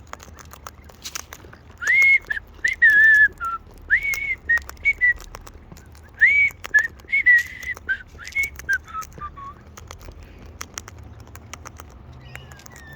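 A person whistling a short call of clear notes that slide up and hold, then finish with a few falling notes, with scattered light clicks.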